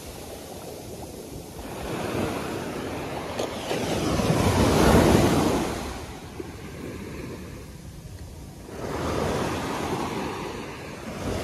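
Small ocean waves breaking and washing up a sandy beach in a steady hiss that swells twice: the bigger wave peaks about halfway through, and a smaller one rises near the end.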